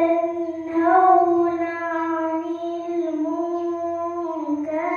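A girl's voice reciting the Quran in melodic tarannum style, drawing out one long held note with slow, ornamented turns of pitch, then rising into a new phrase near the end.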